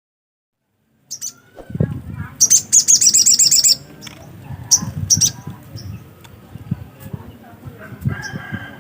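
Spiderhunter (sogok ontong) calling in high, sharp chirps, with a rapid trill of about a dozen repeated notes lasting just over a second near the start, then scattered single chirps, over a low rumbling background.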